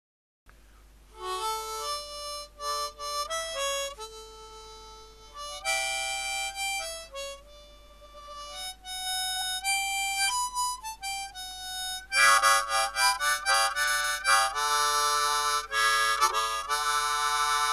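Harmonica music: a slow tune of single notes and note pairs, turning into fuller, louder chords about twelve seconds in.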